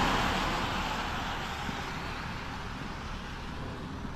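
Rushing noise of a road vehicle going by, loudest at the start and fading away over about two seconds into a steady low outdoor rumble.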